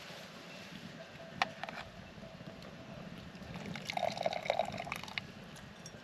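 A few light clinks of a metal pasta server, then water splashing and dripping for about a second and a half as freshly boiled pasta is lifted out and drained into an enamel colander.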